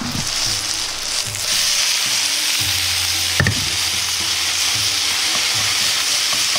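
Yakisoba noodles and pork belly sizzling in hot oil in a frying pan as the noodle cake is flipped. The sizzle grows louder about a second and a half in, once the raw pork side is down on the pan, with a single light tap about halfway through.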